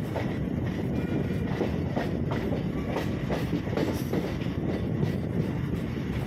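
MEMU electric multiple unit train running, its wheels clicking and knocking over the rail joints above a steady rumble.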